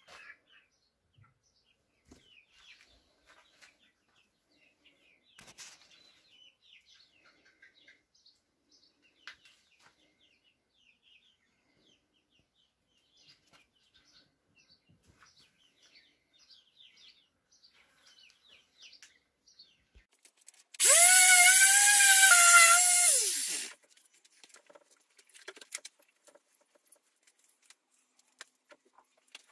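A small electric power-tool motor runs for about three seconds, its whine rising slightly, holding, then dropping as it stops. Faint bird chirps sound throughout.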